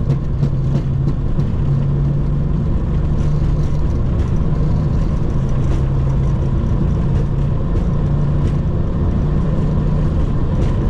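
Boeing 737-800's CFM56-7B engines at take-off thrust with the undercarriage rumbling along the runway, heard inside the cockpit: a loud, steady low hum with a thin steady whine over it and occasional light knocks from the wheels.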